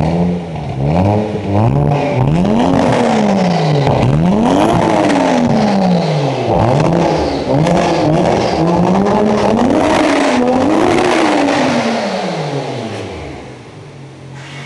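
Toyota Mark II JZX90's inline-six engine being revved repeatedly while the car stands still. Its pitch climbs and falls back about eight times, and it drops to a steady idle near the end.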